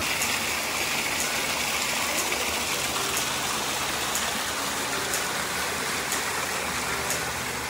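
Monsoon waterfall and stream water rushing in a steady hiss.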